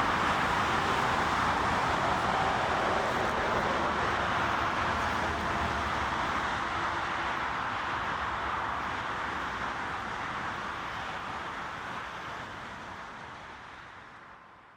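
Boeing 777 jet engines roaring, the sound slowly fading away as the airliner moves off after arrival.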